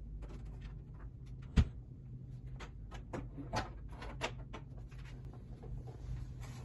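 Irregular knocks and clicks of a folded mirror and its wire over-the-door hooks being handled against a door, with one sharp knock about a second and a half in.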